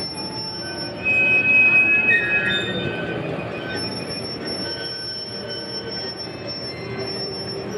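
Small park-railway train, a little locomotive hauling three coaches, running along its track with a steady rumble and high, thin wheel squeal, loudest from about a second in to about three seconds in.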